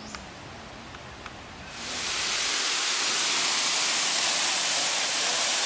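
Waterfall's rushing water: a steady, loud hiss that swells in about two seconds in and then holds even, after a quieter opening with a few small clicks.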